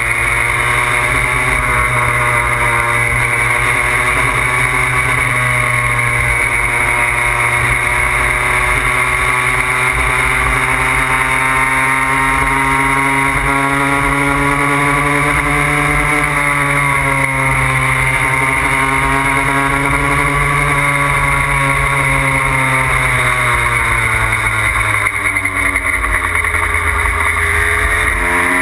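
Puch Maxi moped's single-cylinder two-stroke engine running steadily under way, with wind rumble on the microphone. Its pitch climbs a little past the middle, drops off near the end, then rises again.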